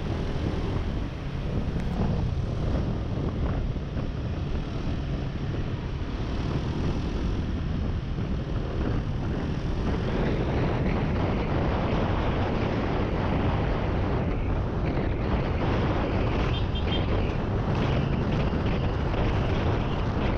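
Yamaha NMAX 155 scooter under way: the engine and road noise with wind rushing over the microphone, growing fuller and a little louder about halfway through.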